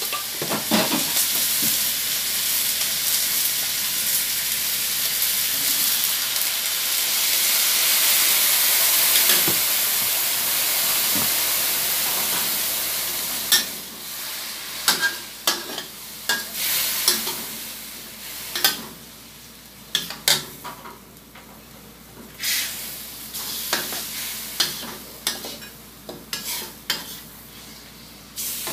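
Chicken pieces sizzling in a hot stainless steel wok. The sizzle is loud and steady at first, then quieter about halfway through, when a metal ladle starts stirring and scraping, clinking sharply against the pan again and again.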